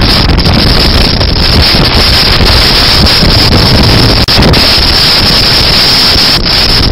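Loud, steady wind buffeting the microphone on a moving motorbike, with a brief dip about four seconds in.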